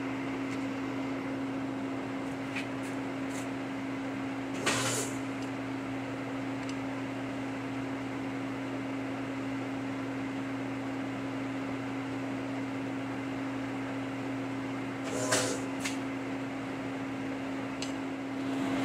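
Radial arm drill's motor running with a steady hum while the drill head is positioned over the work. Two short sharp clunks come through, about five seconds in and again about fifteen seconds in.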